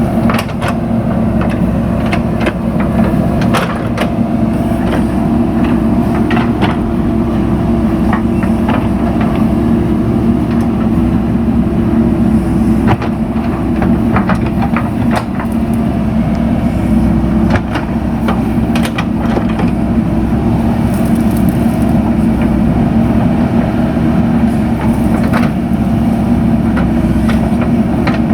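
JCB 3DX backhoe loader's diesel engine running steadily under load, with scattered sharp knocks and cracks from the machine working soil and rock.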